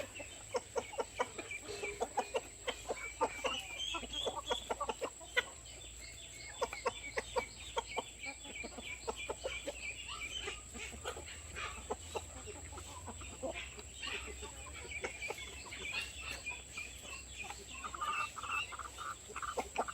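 Flock of hens clucking, with many short clucks overlapping and higher drawn-out calls now and then.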